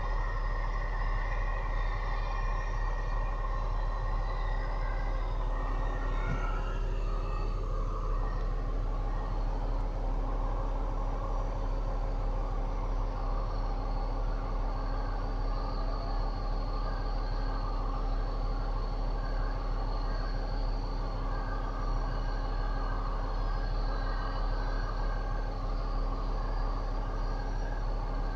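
Heavy truck engines running steadily, with a deep constant hum under them.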